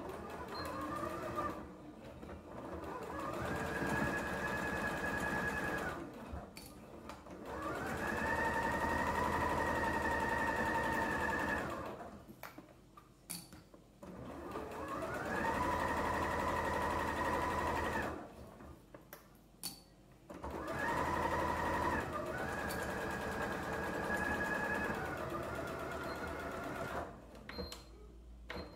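Computerized domestic sewing machine stitching a seam through layers of quilted fabric in about four runs. Each run starts with a whine rising in pitch as the motor speeds up, then holds steady, then stops. Short pauses with clicks fall between the runs.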